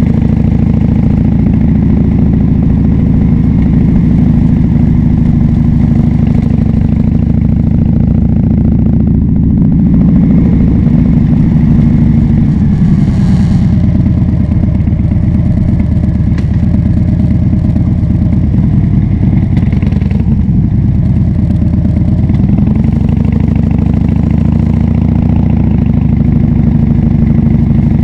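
Harley-Davidson Dyna Fat Bob V-twin running under way through a KessTech ESM3 exhaust, loud and steady. The engine note drops about halfway through and climbs again a few seconds before the end.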